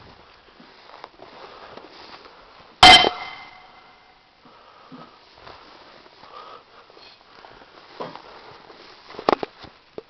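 A single sharp metallic bang about three seconds in, ringing briefly as it fades, with faint rustling and a few small clicks and knocks later on.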